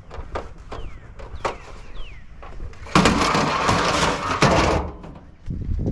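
Scrap being handled and loaded: scattered knocks and clanks, then a loud scraping rattle about three seconds in that lasts nearly two seconds.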